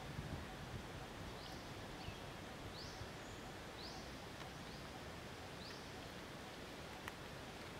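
Forest ambience: a steady hiss with a bird giving short, high rising chirps about once a second, and a single click near the end.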